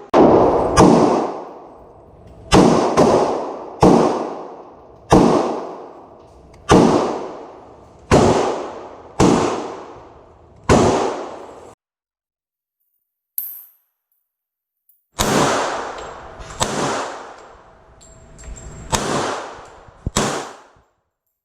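Gunshots at a shooting range: a string of about ten shots, roughly one a second, each with an echoing tail. After a short gap, about five more shots come in quicker succession near the end.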